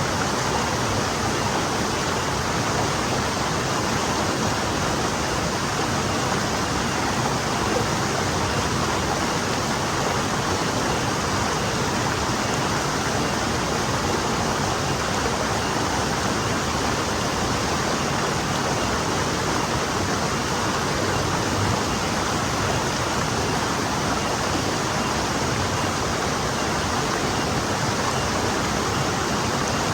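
Forest stream flowing steadily over stones, a continuous even rush of water with no changes.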